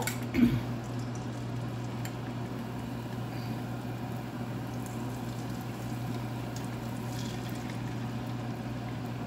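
Beaten eggs poured into a hot oiled frying pan, sizzling steadily, over a steady low hum. A brief clink sounds about half a second in.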